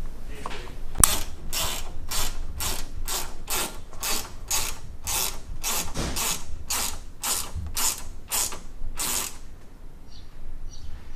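Hand ratchet wrench clicking in quick back-and-forth strokes, about two a second, tightening a bolt on a rooftop tent's mounting bracket; the strokes stop about nine seconds in.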